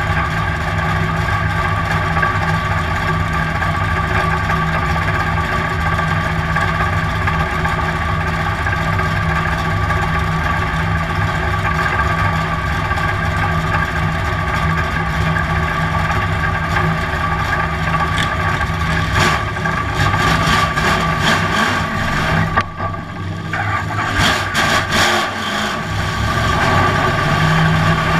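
Dirt-track race car's V8 engine heard from inside the cockpit, idling steadily while the car sits still. Over the last several seconds the throttle is blipped unevenly, the engine briefly dips, and then it picks up as the car starts to roll.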